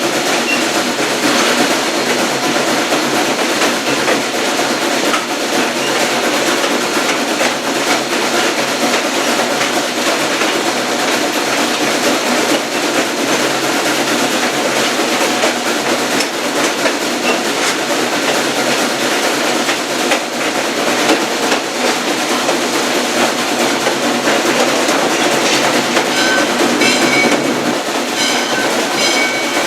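Steady running noise of a steam-hauled passenger train heard from on board a coach: wheels rolling on the rails with a continuous rumble and rattle. Near the end a rapid, repeated high ringing joins in.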